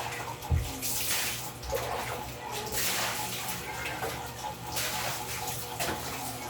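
Water pouring and splashing in several short bursts, with a dull thump about half a second in.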